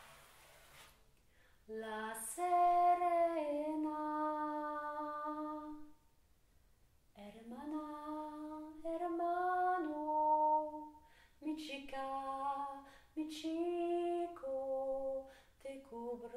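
A woman's voice singing unaccompanied, slow phrases of long held notes with short pauses between them, starting about two seconds in.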